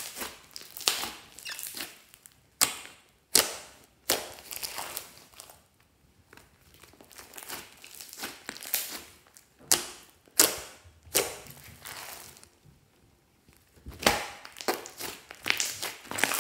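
Thick pink slime with small foam beads squeezed, folded and pressed flat by hand, giving a series of sharp pops and crackles about once a second, some louder than others, with softer squishing between.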